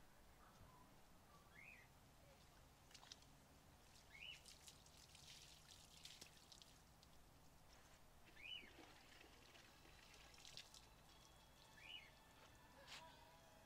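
Faint water pouring and splashing during a hand car wash, with a bird giving a short chirp every few seconds.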